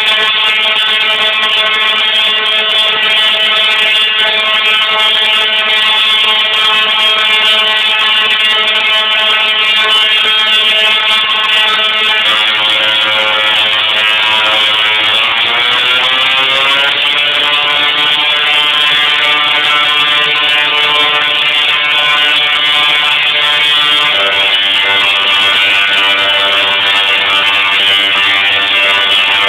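Tesla coil discharge buzzing loudly as a steady, harsh droning note. The pitch jumps about twelve seconds in, rises in a glide shortly after, and shifts again about twenty-four seconds in.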